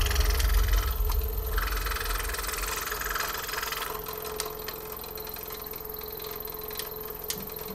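Scroll saw running and cutting a wooden puzzle board: a steady low motor hum with the rasp of the blade. The low hum drops away about halfway through, leaving light clicks.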